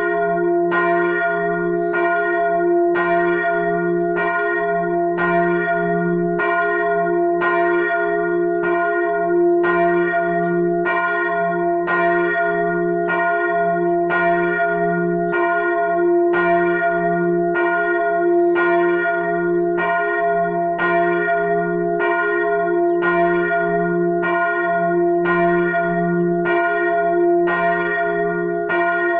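The large bell (bell 1, tuned f') of a church tower, swinging and ringing alone, with a strike about every three-quarters of a second and a deep hum under each stroke. Rung on its own like this, it is the call half an hour before the service.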